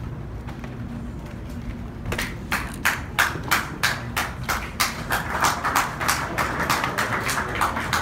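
Scattered clapping from a small group of people, starting about two seconds in, growing thicker, then dying away near the end.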